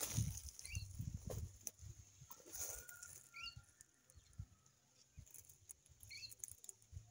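A small bird gives a short chirp three times, about every three seconds. Low rumbling thumps and rustles come from walking and handling in the dry garden, loudest in the first two seconds.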